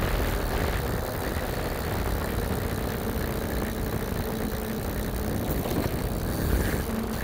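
Wind buffeting the microphone of a camera on a moving bicycle, over the rolling hiss of the tyres on wet asphalt.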